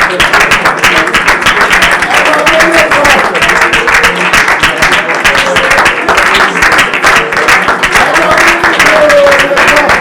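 A congregation's many voices raised together over continuous hand-clapping, loud and unbroken.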